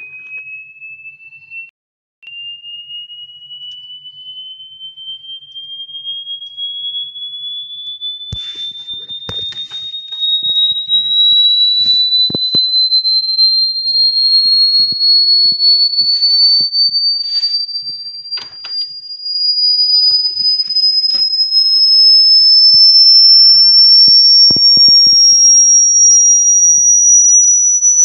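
A single pure electronic tone, high-pitched and slowly, steadily rising in pitch, growing much louder partway through, with scattered short clicks and knocks.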